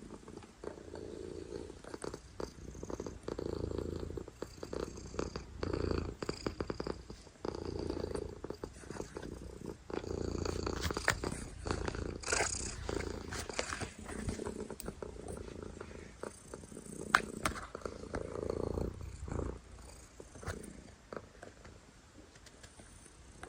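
Domestic cat purring loudly, close up, the purr swelling and fading every couple of seconds with its breathing. A few sharp clicks sound over it, the loudest about two-thirds of the way through.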